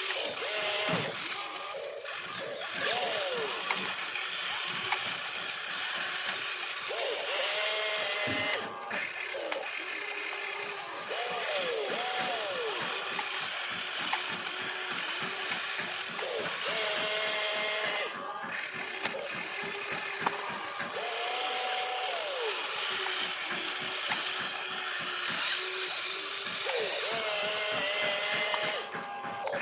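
Small electric motors and gearboxes of radio-controlled construction toys whining, their pitch rising and falling as they start, run and stop, with short breaks about 9 and 18 seconds in.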